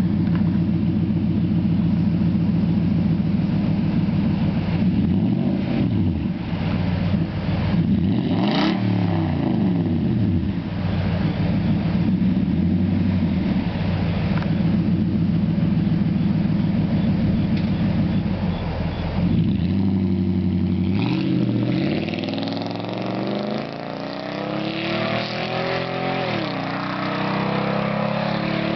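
Nissan Titan 5.6-litre V8 through a Cherrybomb Vortex catback exhaust with the secondary catalytic converters removed: a loud, deep idle with two quick revs in the first several seconds. From about two-thirds of the way in the engine pitch climbs slowly, dips briefly and climbs again, as under acceleration.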